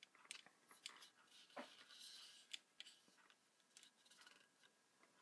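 Near silence with scattered faint clicks and taps, mostly in the first three seconds, from a hand handling the carbon-fibre arms and plastic arm clamps of a hexacopter frame.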